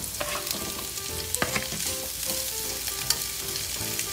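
Baby scallops and onions sizzling in butter in a frying pan, with a steady frying hiss and a few light clicks as the scallops are pushed in and moved around with chopsticks.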